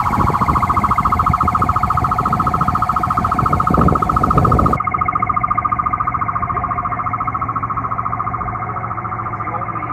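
Electronic siren on a replica sheriff patrol car, sounding a steady, rapidly pulsing warble at one pitch.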